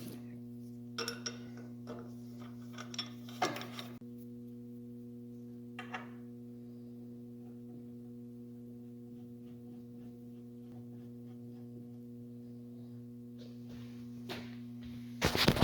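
Magnetic drill, rigged as a lathe, running with a steady electric hum. A few short clatters come from work on the brass, and a louder burst of noise follows near the end.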